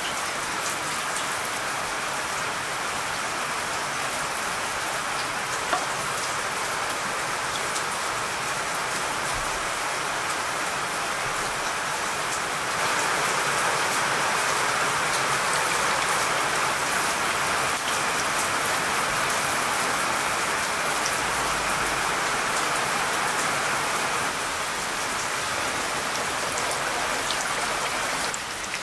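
Steady rain falling, growing a little louder about halfway through.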